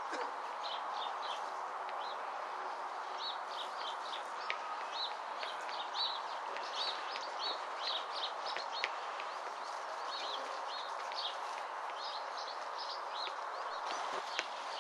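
Small birds chirping in quick, repeated short notes over a steady outdoor background hiss, with a few faint knocks.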